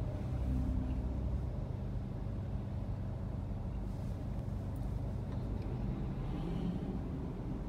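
Steady low rumble of a car moving in slow city traffic, engine and road noise heard from inside the cabin.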